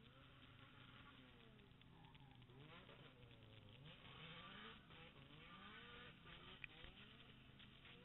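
Faint, distant drift cars' engines revving, their pitch rising and falling again and again as they slide, louder around the middle.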